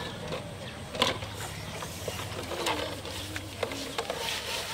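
Scattered sharp clicks and knocks from a plastic tub being handled and lifted, the loudest about a second in, over a low steady hum.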